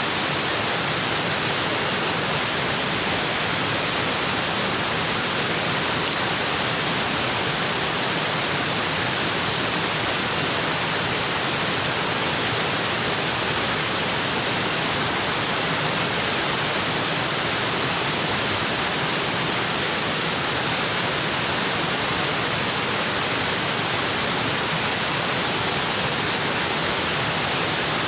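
Waterfall: water pouring steadily onto rocks, an unbroken rushing with no changes.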